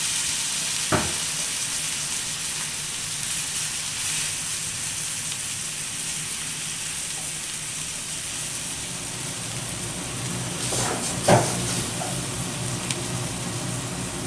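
Jumbo prawns sizzling steadily in hot coconut oil in a frying pan. A sharp knock comes about a second in, and a louder clatter of knocks a little after the ten-second mark.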